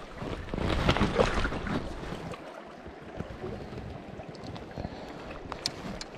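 Splashing in shallow river water as a freshly landed trout is handled at the water's edge, loudest in the first couple of seconds, with wind buffeting the microphone.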